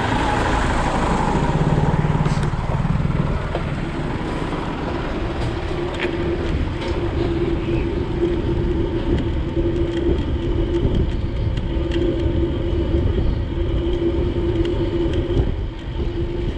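Steady road traffic noise heard while moving along a street, with a low hum that runs on with short breaks.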